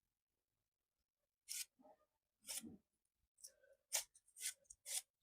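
Rubik's cube faces being turned by hand, each turn a short plastic click-rattle, about five turns in a row.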